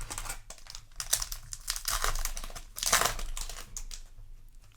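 Foil wrapper of a Yu-Gi-Oh! booster pack being torn open and crinkled by hand, a run of irregular crackles and rips that is busiest about two to three seconds in.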